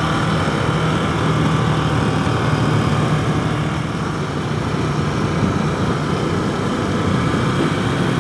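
Ducati Scrambler Desert Sled's air-cooled L-twin engine running at a steady cruise under way, with rushing wind and road noise.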